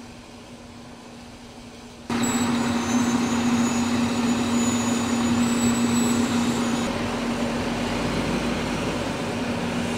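A low steady hum, then, about two seconds in, a military six-wheel cargo truck's engine running loud as the truck drives off a landing craft's ramp onto the sand. The engine gives a steady drone under a dense roar, with a faint high whine.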